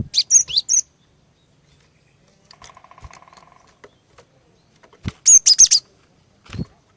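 Female cinereous tit (glatik batu) calling in two short bursts of rapid high chirps, one right at the start and another about five seconds in, with a faint buzzy rattle between them. Low thumps land at the start of each burst and again near the end.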